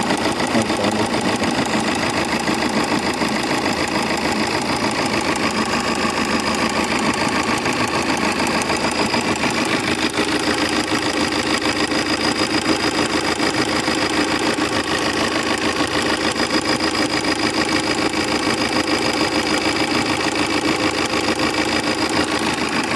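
Tata Indigo eCS common-rail diesel engine idling steadily with a fast, even ticking: the 'tick tick' noise that is put down to a problem with its Delphi injectors.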